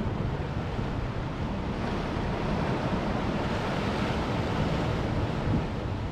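Ocean waves washing against the boulders of a coastal rock wall, a steady rushing that swells in the middle, with wind buffeting the microphone.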